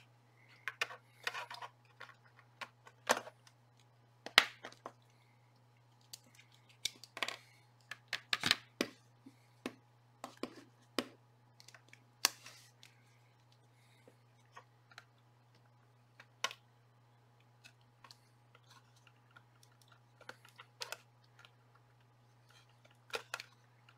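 Irregular clicks, taps and scrapes of fingers working a wire connector loose and shifting a circuit board inside a plastic radio case, over a faint steady low hum.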